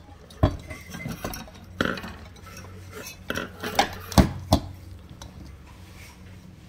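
Parts of a Turkish mosaic glass lamp clinking and knocking together as it is put together: a string of about eight sharp clinks in the first four and a half seconds, then quieter handling.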